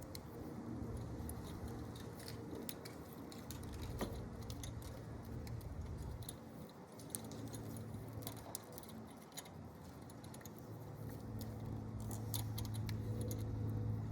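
Hands handling a battery cable end while taping it up: scattered small clicks and light metallic clinks, over a low steady hum that swells toward the end.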